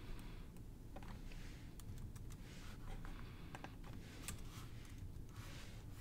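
Scattered, irregular clicks of a computer mouse and keyboard, with short soft hissy sounds between them, over a low steady hum.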